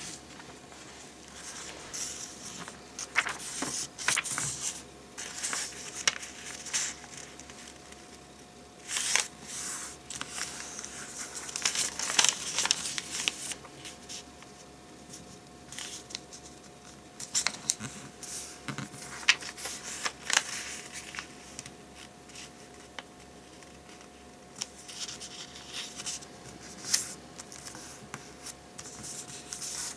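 A sheet of origami paper being folded by hand: crisp rustling and crinkling in irregular bursts, with short sharp strokes as folds are pressed and creased.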